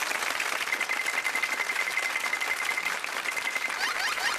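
Audience of children and adults clapping and cheering, a dense patter of many hands. A high steady tone holds through the middle, and short rising sweeps come near the end.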